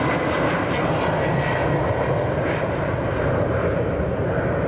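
Jet engines of an Air Canada Boeing 767 at takeoff thrust as it climbs away after lift-off: a steady, loud jet noise with a faint high whine early on.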